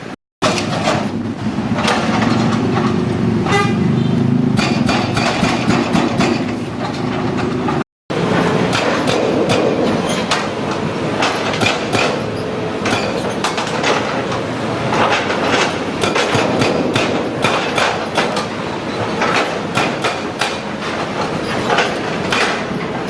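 Excavator-mounted hydraulic breaker hammering the bridge's concrete in a rapid, continuous clatter over the running machinery. The sound cuts out briefly twice, just after the start and about a third of the way in.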